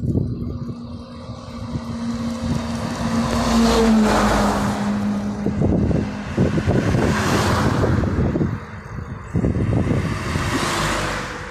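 Oncoming motor vehicles passing a moving bicycle. A truck goes by about four seconds in, its steady hum dropping in pitch as it passes. Two cars then whoosh past, the last near the end. Wind buffets the microphone throughout.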